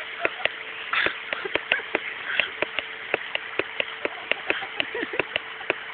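Wooden sticks clacking against each other in a mock sword fight: rapid, irregular sharp knocks, several a second.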